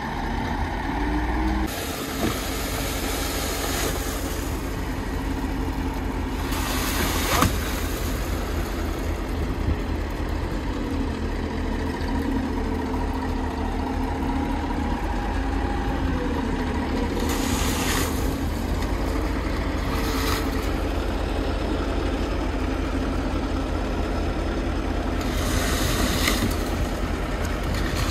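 Heavy diesel truck engines running steadily: the truck-mounted crane and the concrete mixer truck at work. A few short hisses break in over the drone.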